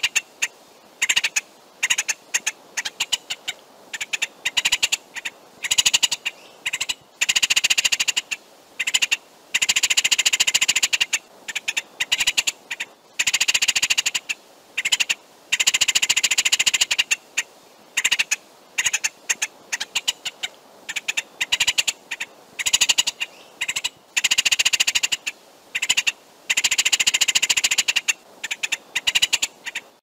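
Red-headed woodpecker calling: rattling calls a second or two long, repeated every few seconds, with short sharp notes between them.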